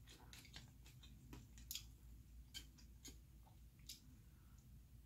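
Faint, irregular wet mouth clicks and smacks of someone chewing noodles close to the microphone.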